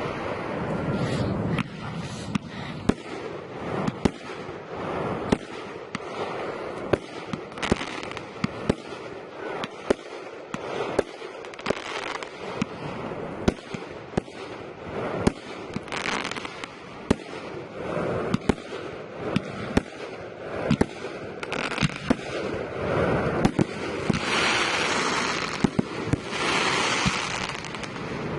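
Aerial fireworks display: shells bursting with sharp bangs at irregular intervals, several a second at times, over continuous crackling, with louder crackling spells near the end.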